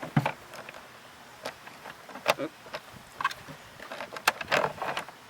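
Wall panels of a prefab shed kit being lined up and fastened, with a hex key turning the panels' rotary lock mechanism: a scatter of irregular clicks, knocks and short scrapes.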